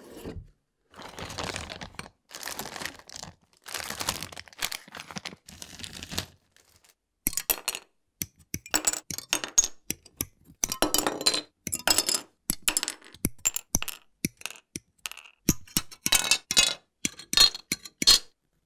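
A cardboard model-kit box being handled and its lid slid open, a few broad swishing rubs. From about seven seconds in, sprue cutters snipping plastic kit parts off their runners: a run of sharp clicks and snaps, some in quick clusters.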